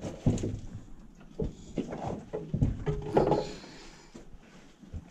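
Footsteps crunching on loose rock, with knocks and scrapes against wooden boards, as a person climbs out through a timber-framed mine entrance. The knocks come thickest in the first three seconds or so, then die down.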